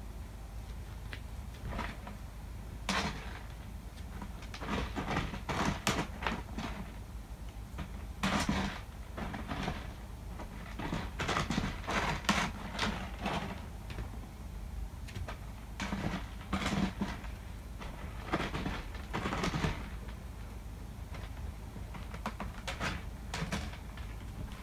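A cat digging and scratching in cat litter inside a covered plastic litter box: irregular bouts of gritty scraping strokes with short pauses between them.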